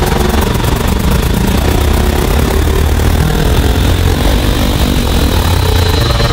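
Electronic music in a breakdown of a progressive breaks mix: a dense, rushing, airplane-like noise wash over a steady droning bass, with no clear beat. The high hi-hat ticks fade out in the first second or so.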